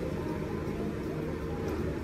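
Steady low hum and rumble of restaurant dining-room background noise.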